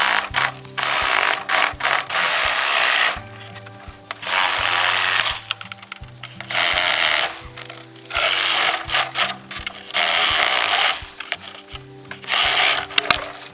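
Bamboo being cut in repeated bursts, each roughly a second long and coming every couple of seconds, over background music.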